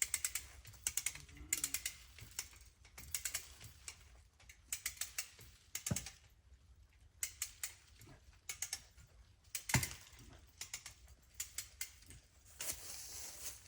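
A hand ratchet being worked to tighten a pulling strap: quick runs of pawl clicks, stroke after stroke, with a couple of heavier knocks about six and ten seconds in as the load shifts under tension.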